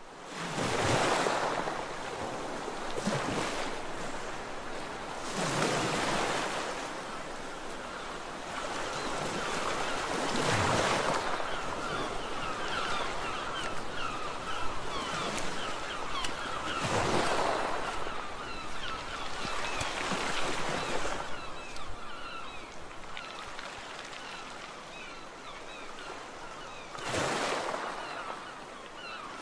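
Sea waves breaking on a beach: a steady wash of surf with a louder surge every few seconds as each wave comes in.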